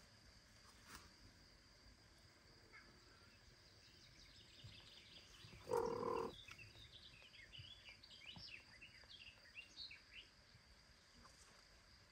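Faint outdoor birdsong, many short high chirps over a steady high insect-like whine, with one short low call just before six seconds in.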